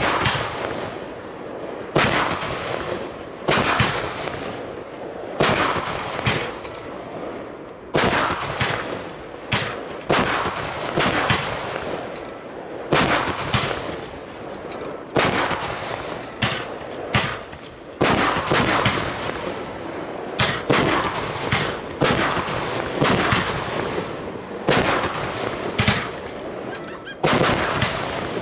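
Aerial fireworks from a firework battery firing shot after shot: sharp bangs about once a second, each trailing off in a long echo.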